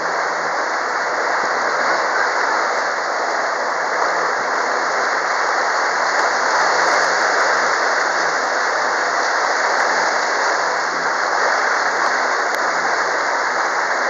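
Steady rush of water along the hull and wake of a motor yacht under way at sea, with the boat's engine a faint low hum underneath.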